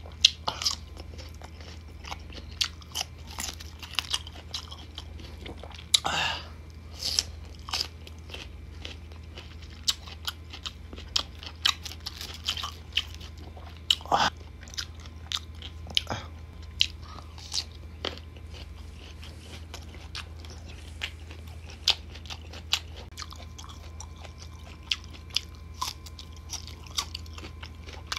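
Biting into and chewing crisp unripe green mango slices close to the microphone: a string of sharp crunches throughout.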